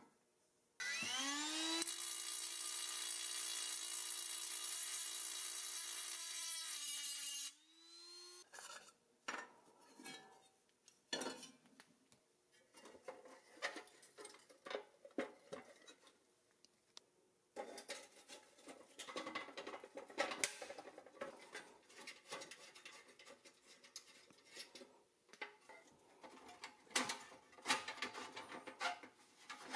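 A small electric power tool spins up with a rising whine, runs steadily for about six seconds and stops. After it come scattered light clicks, knocks and scrapes of rusty steel toy-truck parts being handled and taken apart.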